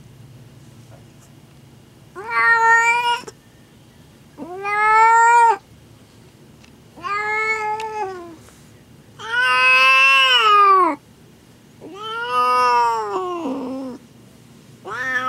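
Orange tabby queen in labour yowling: a series of long drawn-out meows, one about every two and a half seconds, five in all, with a sixth starting near the end.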